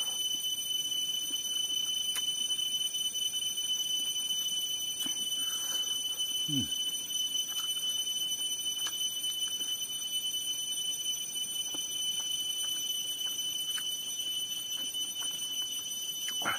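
Soft mouth and eating sounds, with faint scattered clicks, as food is eaten by hand. Behind them runs a steady, high-pitched whine of several tones, the loudest thing throughout.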